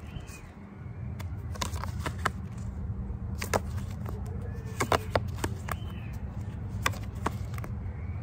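Tarot cards being handled and fanned through in the hands, with irregular sharp clicks as card edges tap and slide past one another, over a low steady background rumble.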